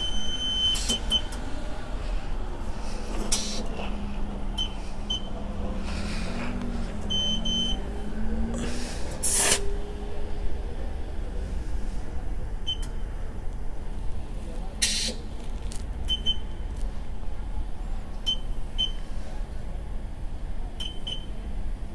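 Digital tyre-inflator air machine beeping, short high beeps at uneven intervals, with a few brief hisses of air as a scooter tyre is filled, over a low steady hum.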